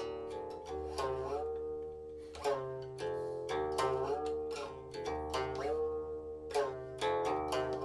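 Silk-string guqin played solo: plucked notes that ring on, several sliding in pitch after the pluck as the stopping finger glides along the string.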